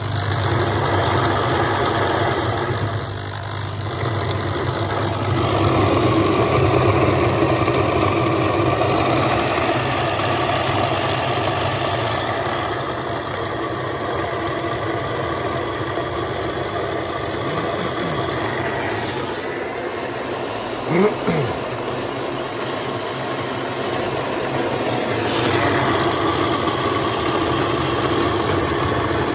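Roller grain mill crushing malted barley, running steadily as the grain feeds down from the hopper through the rollers. About three quarters of the way through there is one short, sharp sound.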